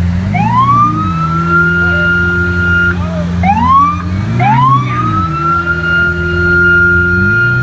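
Police car siren winding up from a low pitch to a held high tone. It is cut off and restarted twice, then held steady through the second half. Underneath runs a steady low engine rumble with a few brief swells up and back down.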